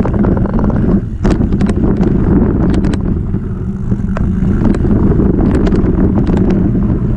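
Mountain bike riding fast down a dirt and gravel trail, heard from a camera mounted on the bike: a steady rumble of the rear tyre on the ground, with wind on the microphone and sharp clicks and rattles from the bike and loose stones.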